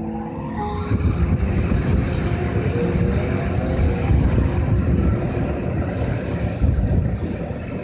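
EH200 electric freight locomotive pulling away: its inverter whine rises in pitch over the first second, then a high steady tone holds over loud low running noise, with another rising whine about three seconds in.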